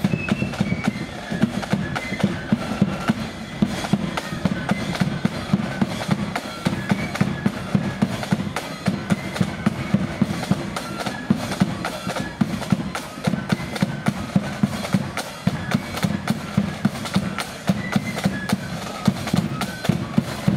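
Blood-and-thunder marching flute band playing on the march: a high flute melody over dense snare-drum rolls and a pounding bass drum.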